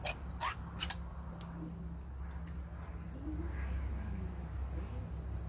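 A metal fork clinks sharply against a tin tuna can three times in the first second while tuna is scraped out of it, over a steady low rumble.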